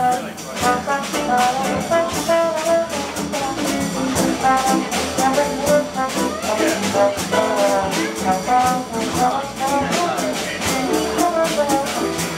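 Live jazz combo playing an instrumental passage of a swing tune, with the trombone carrying the melodic lead over guitar and double bass.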